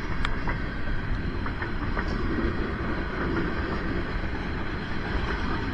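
Long freight train's cars rolling past: a steady rumble of steel wheels on rail, with a few sharp clanks.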